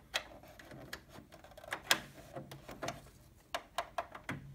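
Scattered sharp plastic clicks and scrapes as a USB cable plug is worked into the USB port on the side of a TV, the loudest click about two seconds in.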